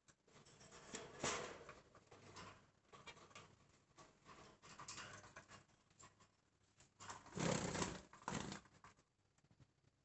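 Faint, irregular scratching and rustling of a budgerigar shifting about in a clay-pot nest, with a louder rustle about seven and a half seconds in and another a moment later.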